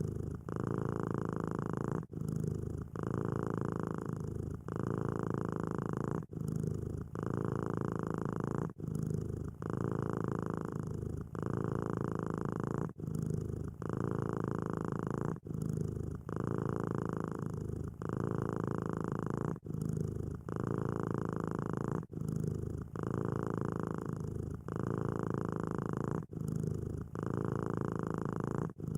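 Domestic cat purring steadily, the purr breaking briefly about every two seconds as it shifts between breaths.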